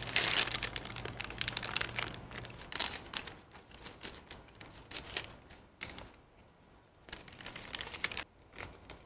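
Clear plastic bag crinkling and rustling in irregular crackles as it is handled and wrapped around a plastic bike pedal. The rustling is loudest in the first few seconds and dies down briefly past the middle.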